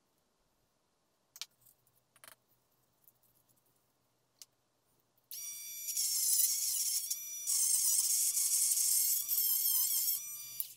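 Small handheld rotary tool starting up about halfway through and running with a high-pitched whine as it grinds the end of a dish soap dispenser's pump. The whine dips briefly once, wavers in pitch under load near the end, then stops.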